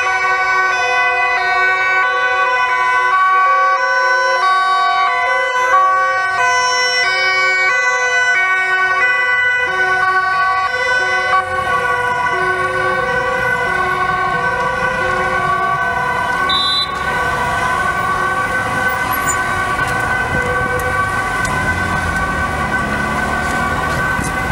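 Several emergency-vehicle two-tone sirens sound at once, each alternating between a high and a low note, out of step with one another. In the second half the alternation gives way to steadier tones, and vehicle engine and traffic noise grows.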